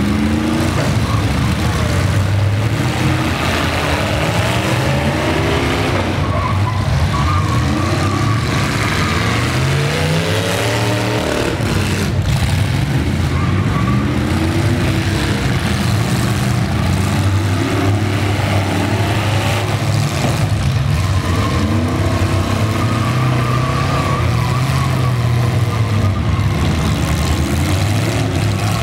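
Engines of several full-size derby trucks revving up and down again and again as they reverse and charge at each other, with one sharp bang about twelve seconds in.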